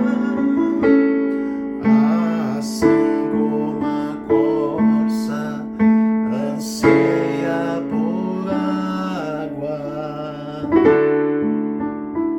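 Slow piano music: sustained chords struck about once a second, thinning out and dying away near the end.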